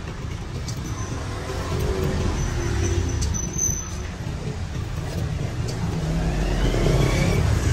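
Road traffic going past: a steady low rumble of engines, with one engine rising in pitch near the end.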